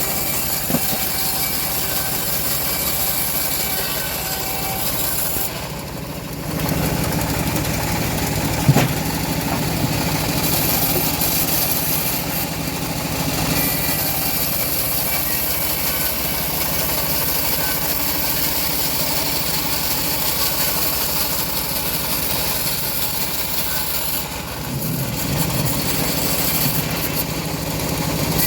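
Homemade bandsaw mill running steadily while sawing teak logs. The level dips briefly about six seconds in and again near the end, and there is one sharp knock about nine seconds in.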